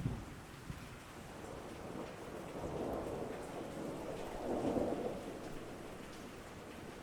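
Steady rain with thunder: a low rumble dies away at the start, and softer rolls of thunder swell twice in the middle.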